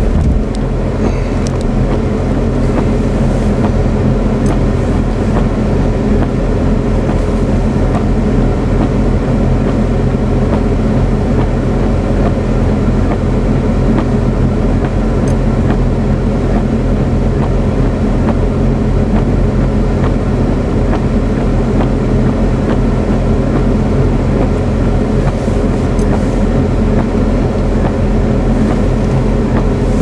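A vehicle engine running steadily at one unchanging pitch, under a loud rushing of blizzard wind.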